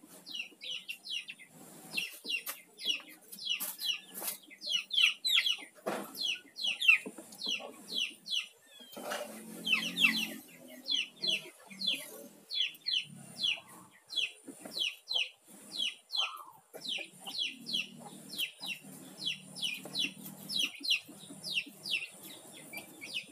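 Chickens: a steady run of short, high, falling peeps, a few each second, with some lower clucking and a few knocks in between.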